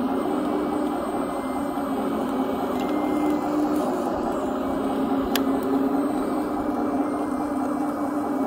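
Small electric motor of a radio-controlled construction model running with a steady whine, its pitch stepping slightly up and down as the load changes. A single sharp tick about five seconds in.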